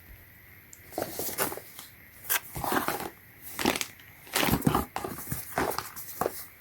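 Packaging being handled and unwrapped, crinkling and rustling in irregular bursts for about five seconds.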